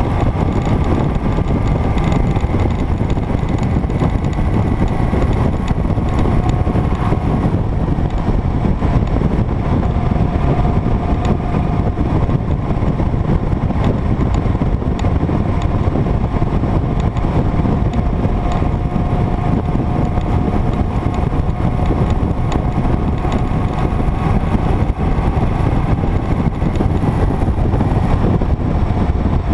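Motorcycle cruising at a steady speed: engine and road noise under heavy wind noise on the microphone, with a faint steady tone riding on top.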